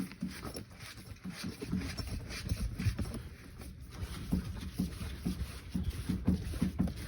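Pipe fittings handled and fitted by hand: a string of irregular, low knocks and rubs.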